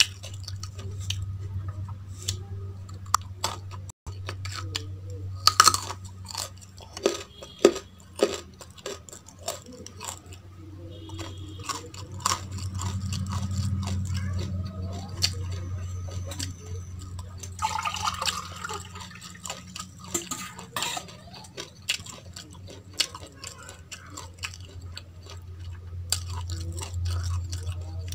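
Close-up crunchy chewing of raw basmati rice and baby carrot, with many sharp crackling crunches, loudest a few seconds in, over a low steady hum.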